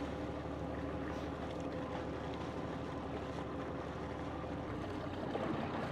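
Pilot boat's engine running steadily at low speed, over a wash of water and wind. The engine's steady hum changes near the end.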